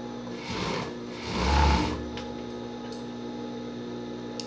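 Siruba industrial overlock (serger) machine stitching a short run, loudest about a second and a half in, over the steady hum of its motor, then a few light clicks.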